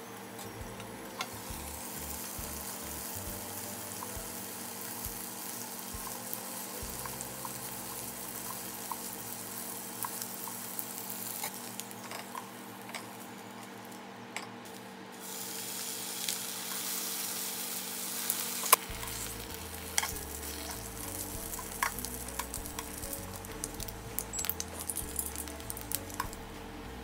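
Chicken tenders and then thin bacon slices sizzling as they fry in a nonstick pan. Metal tongs click against the pan now and then, more often in the second half.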